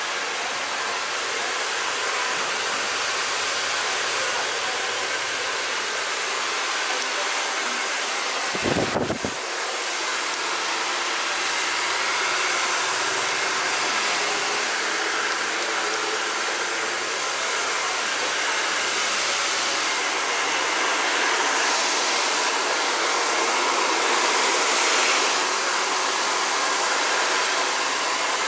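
Handheld hair dryer blowing steadily on a customer's hair, its rushing air swelling a little as it moves closer. A brief low rumble about nine seconds in.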